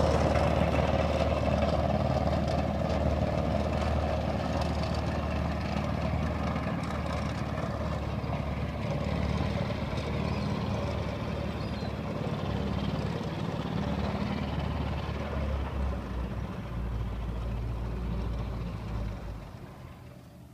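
Engine of a GAZ tracked all-terrain vehicle (gazushka) running steadily, slowly growing fainter, then falling away sharply near the end.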